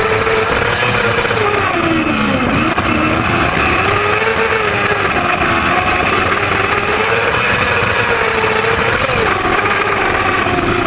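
Kart cross racer's 600 cc motorcycle engine running hard under racing load, its pitch rising and falling with the throttle: it drops sharply about two seconds in and picks back up, then dips briefly near the end. Heard onboard from the cockpit, with a constant rush of noise under the engine.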